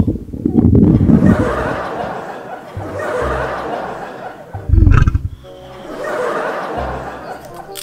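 Comic fart sound effects: several low, rough blasts, the loudest about five seconds in, alternating with laughter.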